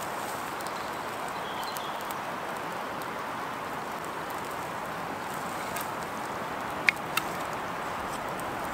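Steady rushing of a woodland stream, with two sharp clicks close together near the end.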